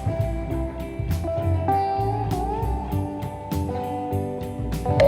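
Background music: a guitar tune over a steady beat.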